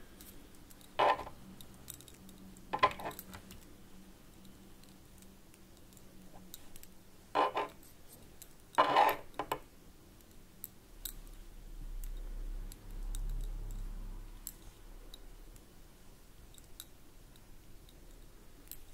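Faint clicks of metal knitting needles as stitches are knitted one by one, with a few short, quiet mutters in between, as of stitch counts.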